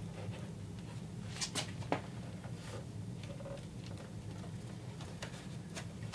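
Light scattered taps and rubs as a plastic rear spoiler is pressed and shifted on a cardboard template, its mounting studs pushing into the cardboard, over a steady low hum.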